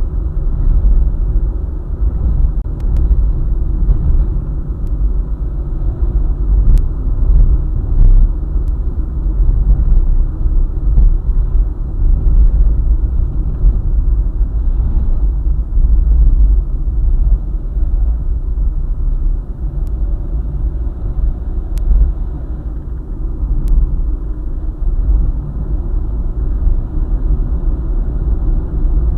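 Car driving along a highway: a steady low rumble of road and engine noise, with a few faint ticks.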